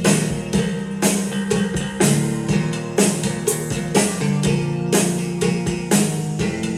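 Instrumental song with guitar and drums and a steady beat, played through powered desktop speakers.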